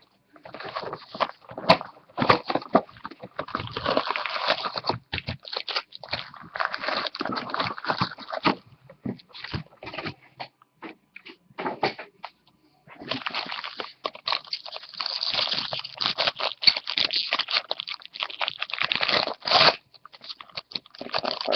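Foil wrappers of Bowman jumbo trading-card packs crinkling and rustling as the packs are handled and torn open: a dense run of small crackles and taps, sparser and quieter for a few seconds near the middle.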